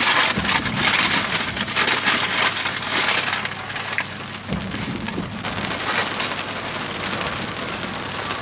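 Plastic takeout bag rustling and crinkling as it is handled, loudest in the first few seconds and then weaker, over a steady patter of rain on the car.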